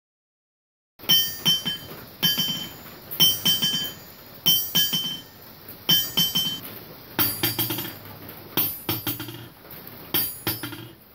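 Hammer struck again and again on a railroad-track anvil on a wooden stand, each blow followed by a quick patter of rebound bounces, in a rebound test. The first several blows ring with a clear metallic tone; from about seven seconds in the blows sound duller, with less ring.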